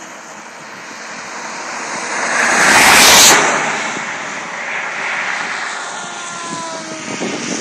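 Electric radio-controlled model airplane flying past: its motor and propeller whoosh swells to its loudest about three seconds in, then fades as the motor's pitch drops.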